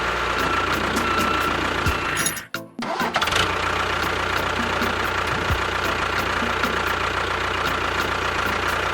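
Steady engine running noise under background music, with a brief break about two and a half seconds in.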